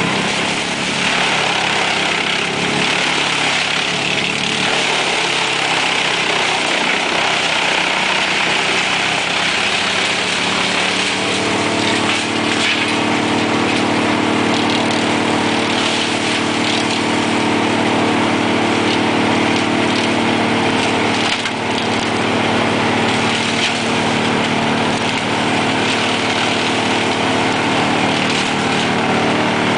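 Large truck-mounted wood chipper running steadily while it shreds brushwood fed in by a grapple, with scattered cracking and splintering of branches. A steadier, lower machine hum sets in about a third of the way through.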